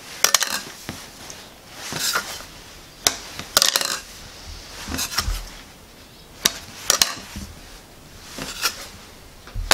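Dough scraper knocking and scraping on a granite worktop as a rope of cookie dough is cut into lengths. Sharp clicks come at irregular moments, roughly one a second, with soft scraping between them.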